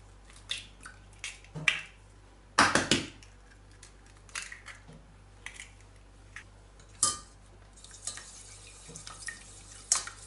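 Eggs knocked and cracked on the rim of a stainless steel saucepan: a series of sharp knocks and clinks of shell on metal, the loudest about three seconds in. Near the end a whisk starts beating the eggs in the pot, clicking against the metal.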